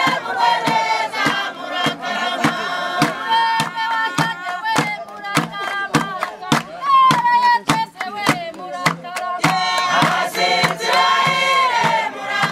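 Background music: a choir of voices singing over a steady drum beat.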